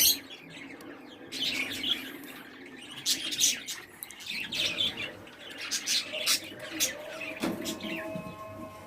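Small cage birds chirping in a series of short, high calls.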